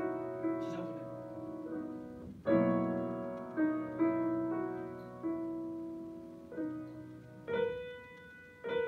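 Grand piano playing a slow, quiet passage of chords and a singing melody line, each chord struck and left to ring and fade slowly, the notes blurring into one another under the sustain pedal.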